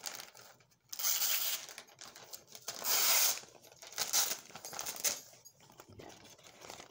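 Clear plastic bags crinkling and rustling as they are handled and unfolded, in several separate bursts.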